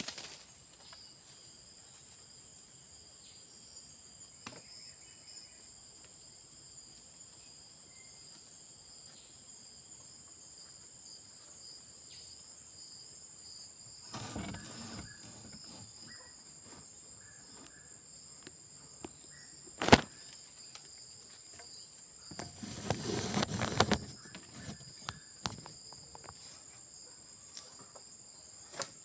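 Steady high-pitched chorus of crickets and other insects, with a few short bursts of rustling noise and one sharp knock about two-thirds of the way through.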